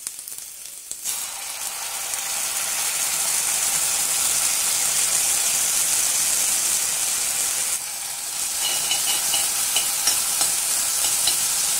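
Dark soy sauce sizzling as it hits hot oil and fried chillies, garlic and ginger in a pan, starting about a second in and hissing steadily. Near the end a spatula stirs it through, with light scraping on the pan.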